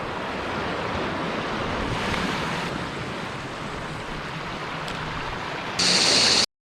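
Ocean surf washing against a rocky shore, a steady hiss with wind on the microphone. Near the end a brief louder, brighter hiss, then the sound cuts off abruptly.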